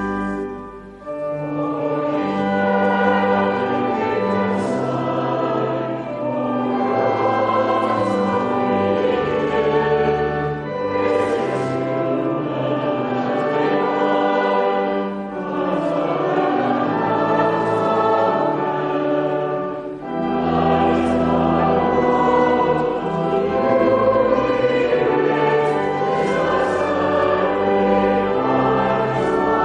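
A choir singing a hymn with instrumental accompaniment, in sustained chords with a brief pause about a second in.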